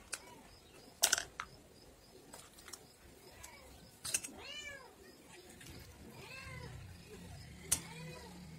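A cat meowing several times, each meow rising and falling in pitch, starting about four seconds in. A steel ladle clinks sharply against a steel bowl and plastic cups now and then.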